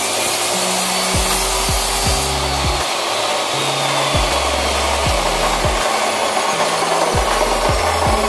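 Abrasive chop saw cutting ribbed steel rebar with a loud grinding hiss that eases about two seconds in as the cut ends, followed by a high whine that slowly falls in pitch.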